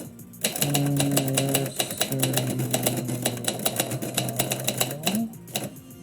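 Typewriter keys struck in a fast run of clicks for about four and a half seconds. Under them is a low steady hum that rises in pitch and stops about five seconds in.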